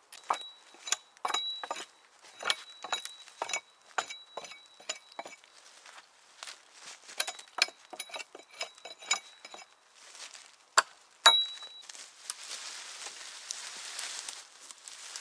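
Hand tool striking over and over during camp work: irregular sharp knocks and clinks, many with a thin high metallic ring that hangs on after them. Near the end the strikes give way to a few seconds of steady scraping.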